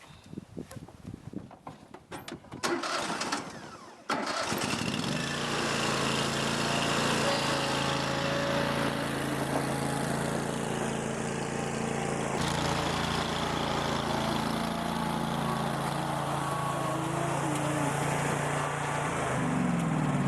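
A small engine is cranked and starts: a burst of cranking about two and a half seconds in, catching about four seconds in, then running steadily. Near the end its pitch shifts up and down.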